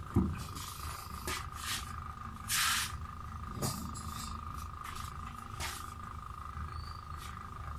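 Greasy hands handling a rubber axle-joint boot and metal joint housing under a car: a few short clicks and rustling, squelching handling noises, the loudest about two and a half seconds in, over a steady high hum.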